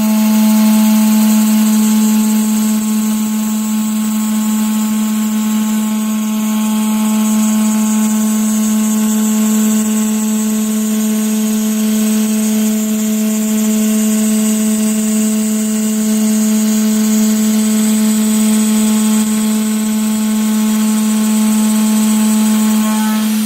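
CNC router spindle at 16,000 rpm driving a 6 mm single-flute end mill through 15 mm aluminium plate: a steady pitched machining whine with a hiss above it.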